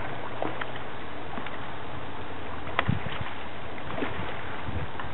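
A hooked freshwater drum thrashing and splashing at the water's surface near the bank: a few short splashes and knocks over a steady background hiss.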